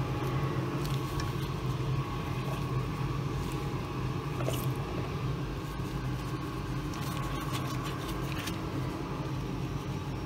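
A steady low hum, with a few faint light clicks and rustles of vegetables and bowls being handled, about four seconds in and again around seven to eight seconds.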